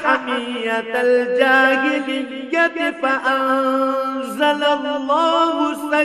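A male Quran reciter chanting Arabic verses in melodic tajweed style. He holds long notes and ornaments them, gliding from one pitch to another.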